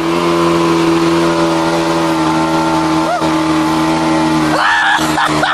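Boat outboard motor running at a steady pitch, heard from aboard the boat, with a brief voice-like sound near the end.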